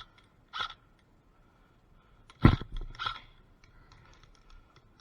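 Airsoft gun shots: two short sharp cracks, then a much louder single bang about two and a half seconds in and one more crack just after, followed by a few faint small ticks.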